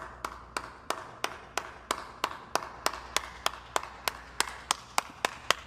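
One person clapping slowly and evenly, about three claps a second, over a faint low hum.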